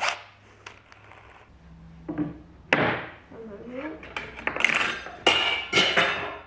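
Knocks and clatter of a cordless drill and tools being handled and set down on a wooden workbench: a sharp knock about three seconds in, then a cluster of louder knocks near the end.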